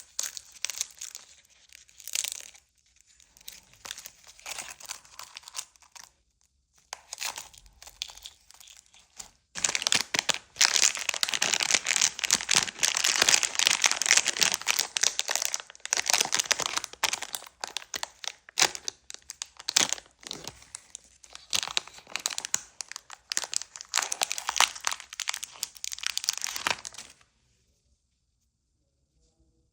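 Candy and its plastic wrapper crinkling and crackling as they are handled, in irregular stretches that grow dense and loud about ten seconds in and stop near the end.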